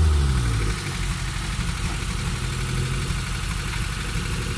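Off-road pickup truck's engine dropping off from a rev in the first second, then idling steadily.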